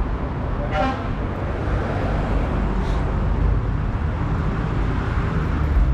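Busy city street traffic: a steady rumble of engines and tyres.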